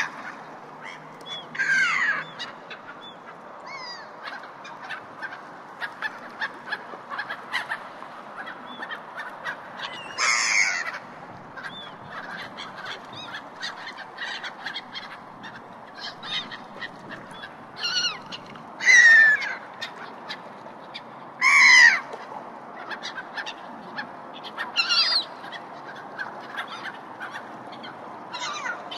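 Gulls calling at a harbour: several loud, drawn-out cries that slide in pitch, spaced a few seconds apart, over steady background noise with many short, faint ticks.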